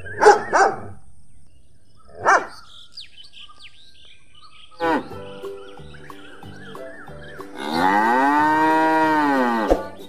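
A cow moos once near the end, one long call of about two seconds that rises and then falls in pitch, over background music with a steady beat that comes in about five seconds in. Short yelps from a dog come at the very start and again about two seconds in.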